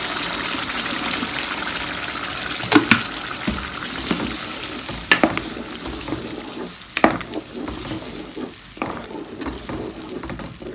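Onions frying in ghee and oil sizzle as blended tomato is poured into the pot, and the sizzle fades over the next several seconds. A wooden spoon stirs the sauce, knocking against the metal pot several times.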